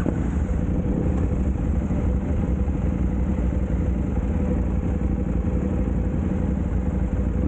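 KTM 790 Adventure's parallel-twin engine idling steadily, just after starting.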